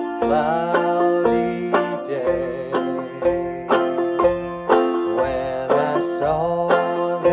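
Five-string banjo played clawhammer style in open F tuning, a steady, even rhythm of picked notes and brushed chords.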